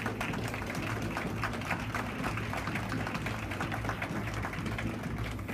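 Scattered clapping from a seated audience, many irregular claps a second, over background music with a steady low bass.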